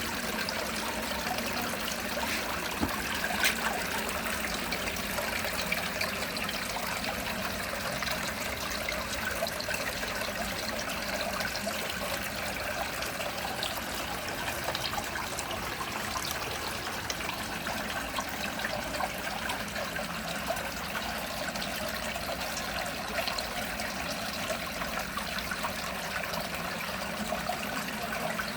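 Water trickling steadily, a constant wash flecked with small crackles and pops.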